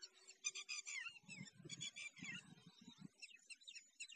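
Faint chorus of small birds chirping and trilling. Between about one and three seconds in, a few soft low crunches come from a cow tearing and chewing dry grass.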